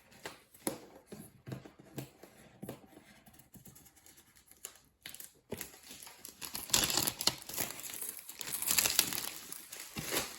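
Product packaging being handled and opened: scattered small clicks and rustles, then louder crinkling and tearing from about six and a half seconds in.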